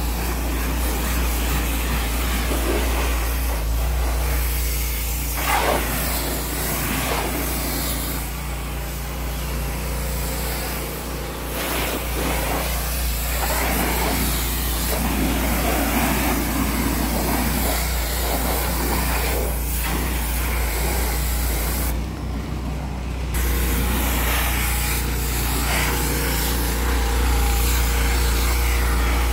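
Pressure washer running steadily, its wand blasting water against a car's wheel and front bumper with a constant hiss over the machine's low hum. The spray cuts out for about a second about three quarters of the way through.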